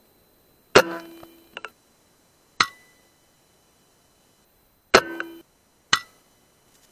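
Four separate sharp shots from a sub-12 ft lb FX PCP air rifle, each dying away quickly, some with a short ring after.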